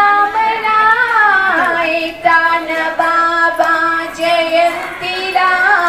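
A woman singing a devotional verse into a microphone, in long held notes joined by sliding pitch changes.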